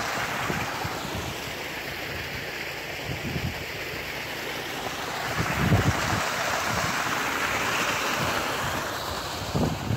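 Irrigation water from a pump's discharge pipe gushing into a dirt ditch: a steady rushing splash, with wind buffeting the microphone.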